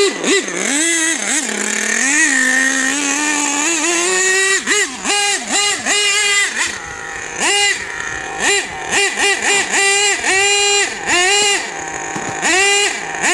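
HPI Savage X 4.6 RC truck's 4.6 cc nitro engine revving: first a held, wavering rev, then from about four seconds in a string of short throttle blips. The truck sits in the brush without moving.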